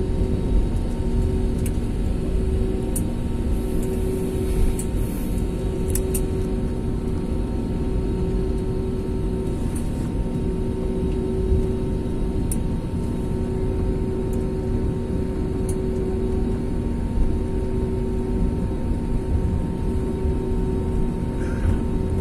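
Jet airliner taxiing after landing, heard from inside the passenger cabin: the engines at taxi idle give a steady low rumble with a constant hum, and a few faint clicks are heard now and then.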